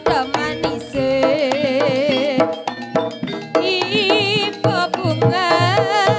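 East Javanese jaranan gamelan music: rapid hand-drum strokes from the kendang with gong and metallophone tones, under a sustained, wavering melodic line.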